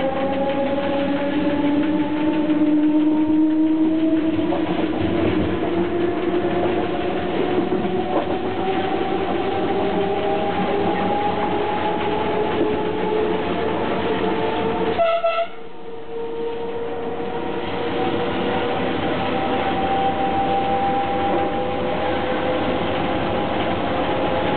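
Cab of a Z 5300 electric multiple unit under way: the traction motors whine, the whine climbing slowly and steadily in pitch as the train gathers speed, over rolling rail noise. About fifteen seconds in there is a short high tone, then the sound dips for about a second before the whine carries on rising.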